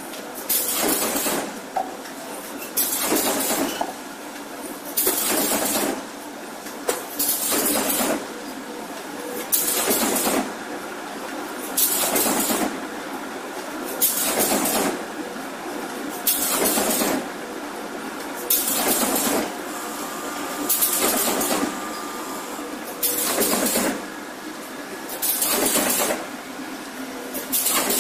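Corrugated paperboard partition machine running: a steady mechanical noise broken by a loud rushing burst about once every two seconds as the machine cycles.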